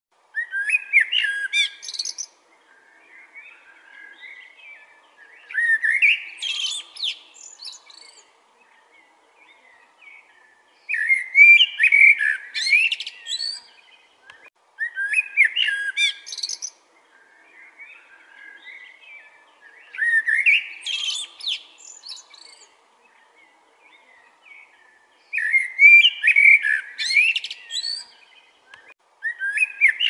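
Male common (Eurasian) blackbird singing: rich warbled phrases of about two seconds, repeated every four to five seconds, seven in all, with quieter twittering in several of the pauses between them.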